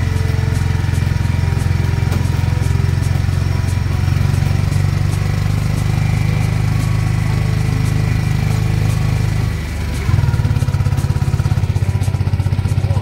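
Engine of the vehicle being ridden in, running steadily under load up a hill road with a deep, fast throb. It eases off briefly a little under ten seconds in, then picks up again louder.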